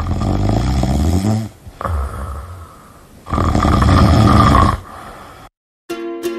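A person snoring loudly, two long rasping snores a couple of seconds apart. Near the end, plucked-string music like a ukulele starts.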